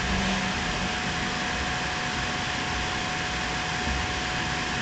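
Steady background hiss with a faint steady hum tone running through it; no distinct handling or packaging sounds stand out.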